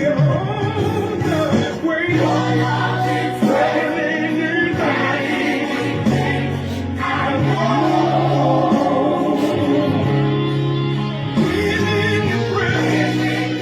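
Gospel worship song playing, with a choir singing over steady held chords.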